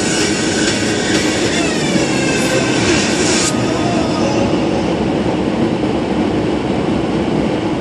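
Background electronic music: a loud noisy synth sweep over a steady low drone, the high swish cutting off sharply about three and a half seconds in.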